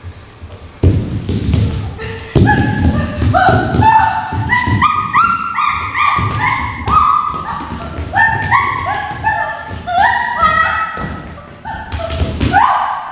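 Repeated heavy thuds and taps of dancers' bodies and feet on a studio floor, with many short, high, pitched calls that slide up and down over them from about two seconds in.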